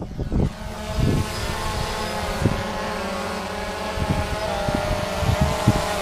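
Multirotor helicopter camera drone's motors and propellers humming steadily, a pitched whine over a rushing haze, with a few short low thumps.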